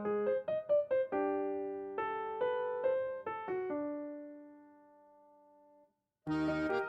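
Background piano music: a melody of single notes that fades away, a moment of silence, then a fuller new piece starting near the end.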